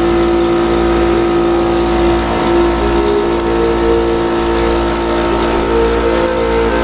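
Steady motor hum of a respiratory therapy machine, with a second, higher tone coming and going through the second half.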